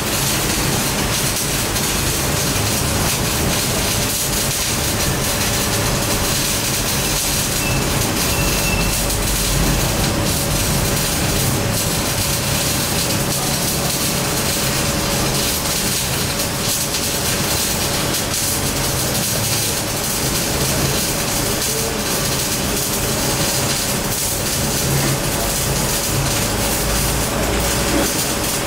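Continuous welding-shop noise: a steady loud hiss and crackle with a faint constant whine running through it.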